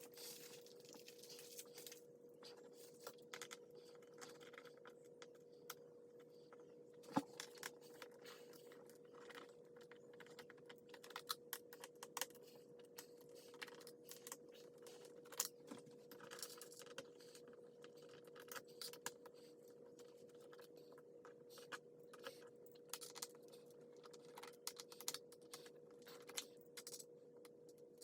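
Faint, irregular small clicks and taps, with a sharper click about seven seconds in, over a steady faint hum.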